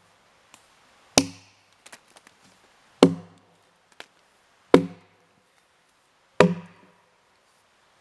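Four axe blows into a felled white ash log, evenly spaced about every second and a half to two seconds. Each blow lands with a sharp crack and a short low ring from the wood, with faint ticks of chips or small knocks between them. The axe is a Jersey-pattern axe with a 3.5-pound head.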